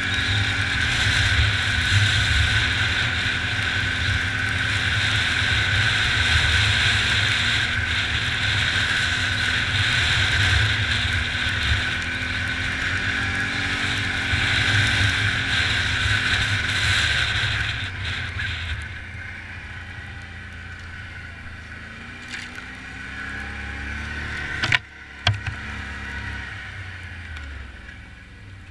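ATV engine running under load through snow, its note rising and falling, with a steady hiss over it. About two-thirds of the way through the hiss drops away and the engine runs quieter, then two sharp knocks.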